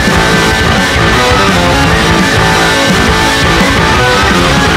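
Background rock music with guitar, playing steadily.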